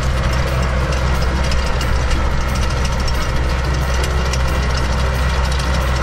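Kubota tractor's diesel engine running steadily as it pulls a levee-coating machine along a paddy edge, making a low drone with a fast, even ticking clatter over it.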